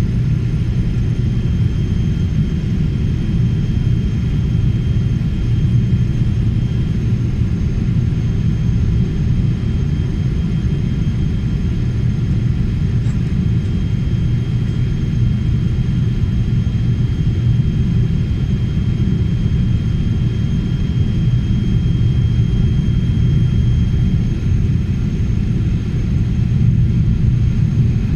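Steady low rumble of a Boeing 777's jet engines and airflow heard inside the passenger cabin on the approach to landing, with a faint high steady whine running through it.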